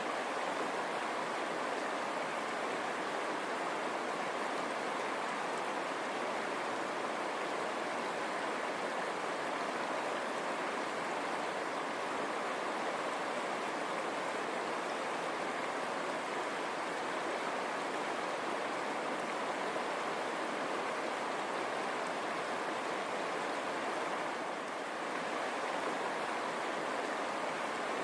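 River water running over stones, a steady rushing babble.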